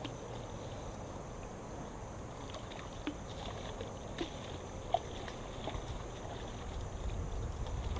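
Quiet outdoor river ambience: a steady low hiss with a few small, sharp clicks and knocks, and low wind rumble on the microphone building near the end.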